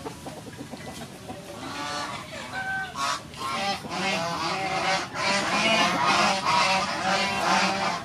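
A flock of birds calling, many overlapping calls at once, thickening and growing louder from about three seconds in.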